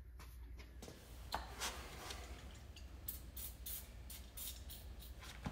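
Short hissing spurts of aerosol lubricant sprayed onto the rubber hangers of a stainless exhaust, several quick bursts in a row in the second half, with lighter handling noise before them.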